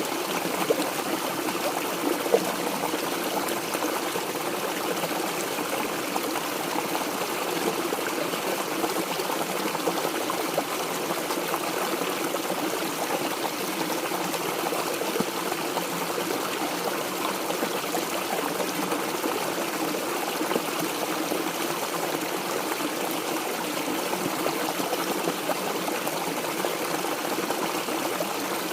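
Mountain stream water flowing steadily over its bed, with two brief louder moments in the first few seconds.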